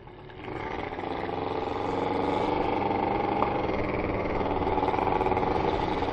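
Small scooter engine accelerating as the scooter pulls away, growing louder over the first couple of seconds and then running steadily under way.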